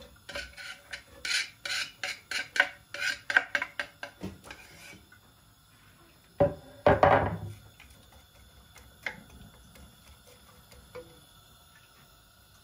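Wooden spatula scraping chopped onion and garlic off a wooden cutting board into a pot, a quick run of short scrapes for about five seconds. About halfway through there is a loud knock and clatter, then a few light taps.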